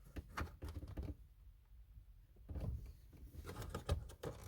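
Scattered small clicks, taps and light scrapes of hand work on a car's dashboard trim, coming closer together in the second half.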